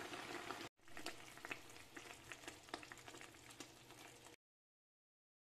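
Faint bubbling and popping of vada curry gravy simmering in a pan, small pops coming irregularly over a soft sizzle; it cuts to dead silence about four seconds in.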